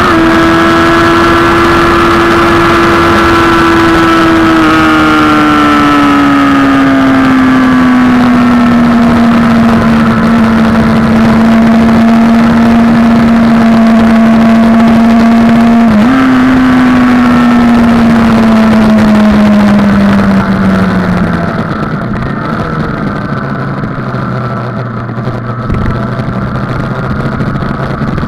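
Sport motorcycle engine heard from the rider's position with heavy wind rush, holding a high steady note at speed, then falling in pitch as the bike slows, with one quick gearshift a little after halfway. Near the end it runs much quieter at low revs, rolling at pit-lane speed.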